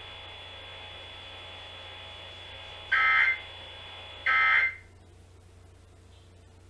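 Emergency Alert System end-of-message data tones: two short bursts of the two-pitch digital data signal, about a second and a half apart. They come over a faint broadcast hiss that cuts off right after the second burst.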